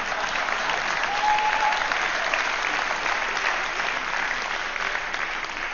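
A large auditorium audience applauding, a dense steady clapping that eases slightly toward the end.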